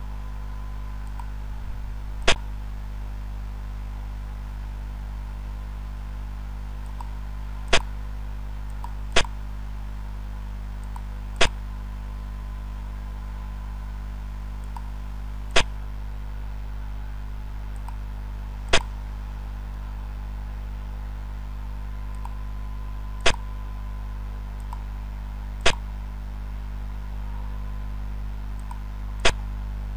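Piece-move click sound effect of a xiangqi (Chinese chess) game replay program: nine sharp single clicks, each as a piece is placed, spaced unevenly a few seconds apart over a steady low hum.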